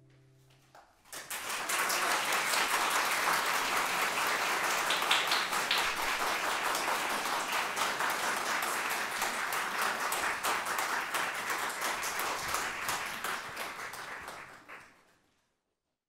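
Audience applause after the last guitar chord dies away. The clapping starts about a second in, stays steady and fades out quickly just before the end.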